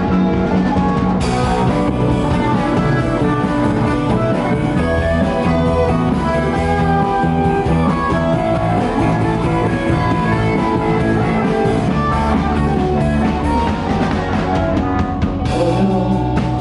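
Instrumental break of a rock song: guitar over bass and a drum kit.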